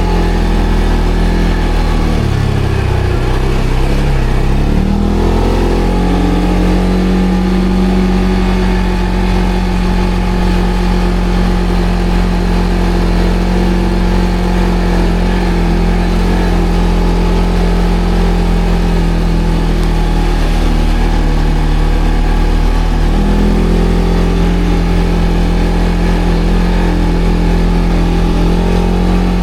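ATV engine running while riding off-road. Its pitch dips about two seconds in, climbs back a few seconds later, holds steady, then steps up near the end.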